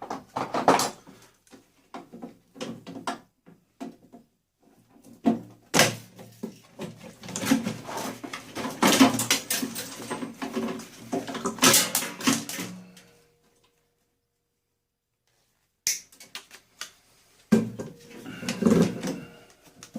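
Clatter of plastic and metal parts being handled and pulled apart while an appliance is stripped for scrap. A run of sharp clicks and knocks stops for a few seconds, then more knocks come near the end.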